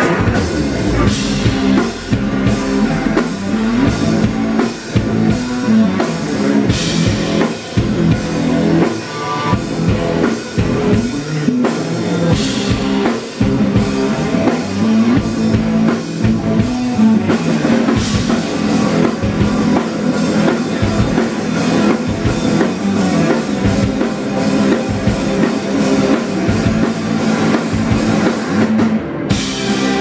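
A rock band playing live: drum kit, distorted electric guitars and bass guitar, with cymbal crashes every few seconds. Near the end the band stops for a moment, then comes back in on a cymbal crash.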